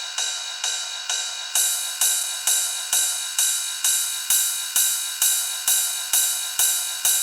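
Techno percussion loop playing on its own, with no kick or bass: a ringing, cymbal-like metallic hit repeats about twice a second. About a second and a half in, the hits become brighter and louder in the top end.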